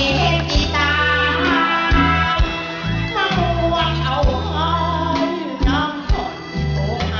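A song sung into a microphone over band backing, with a steady bass line and drum hits.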